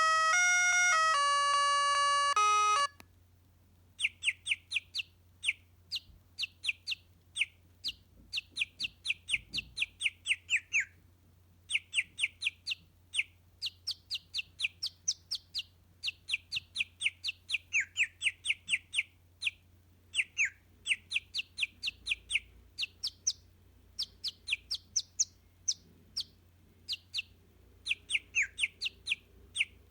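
Mobile phone ringtones. A chiming, doorbell-like ringtone ends about three seconds in. After a short pause a bird-chirp ringtone begins: quick runs of high chirps, each falling in pitch, repeated in phrases with short breaks.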